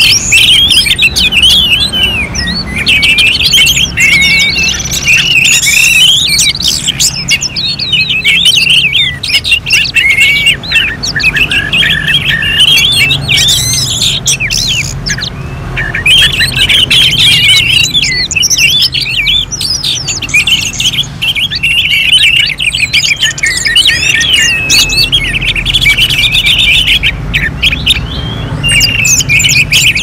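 Orange-headed thrushes singing at once in a dense, continuous stream of loud, overlapping, rapid warbling phrases, as at a songbird contest. The song thins briefly about halfway through, over a low steady background hum.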